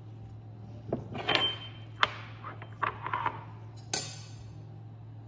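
A few separate kitchen knocks and clinks of dishes and utensils being handled, the sharpest one about four seconds in, with a brief rustle near the start, over a steady low hum.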